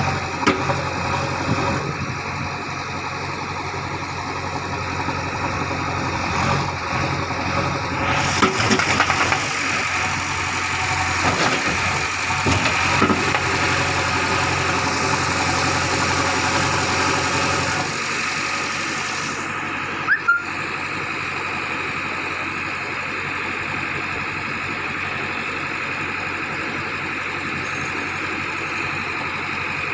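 JCB 3DX backhoe loader's diesel engine running while the backhoe arm digs; the sound turns fuller and rougher about eight seconds in, then settles to a steadier, lower running about eighteen seconds in, with one short knock shortly after.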